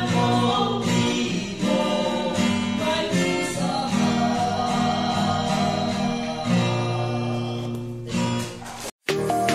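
Acoustic guitar strummed as a man sings along. Just before the end the performance cuts off suddenly, and after a brief silence different music starts.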